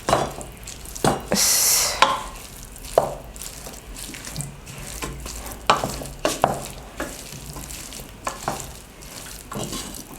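Mutton curry being scooped and stirred into boiled potatoes: a utensil scraping and knocking irregularly against the dish, with one longer hissing scrape a little over a second in.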